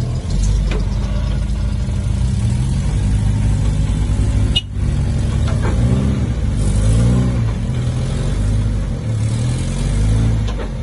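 Off-road 4x4 vehicle's engine running at low speed, revving up and down several times in the second half, with a brief break near the middle.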